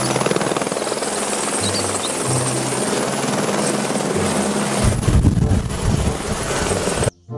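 Light single-engine helicopter of the AS350 Écureuil type hovering, with a fast steady rotor chop. The low rumble grows heavier about five seconds in, then the sound cuts off abruptly near the end.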